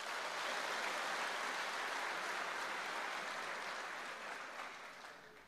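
A seated audience of party members applauding steadily after an announcement, fading out near the end.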